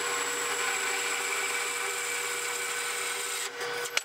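Horizontal metal-cutting bandsaw running, its blade cutting through steel bed frame angle iron with a steady motor and blade whine. The sound dips about three and a half seconds in, and there is a sharp click at the very end.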